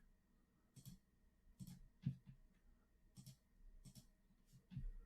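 Faint computer mouse clicks, about eight at irregular intervals, in a quiet small room.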